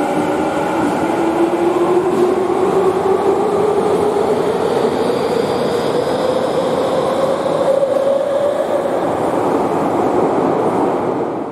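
Electric subway train accelerating away from an underground platform: its traction motors whine in a steadily rising pitch over the rumble of wheels on rail, echoing in the station. The sound eases off near the end as the last car clears.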